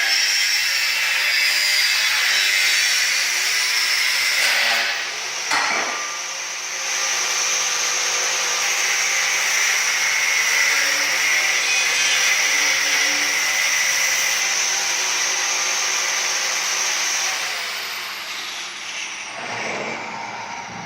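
A power tool working metal: a loud, harsh rasp with a steady high whine over it. A single sharp knock comes about five and a half seconds in, and the tool dies down near the end.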